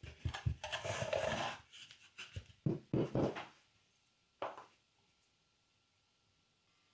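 Small pieces of wood being handled and fitted by hand: a quick run of knocks with a brief scraping rub in the first three seconds or so, one more knock a little later, then quiet room tone.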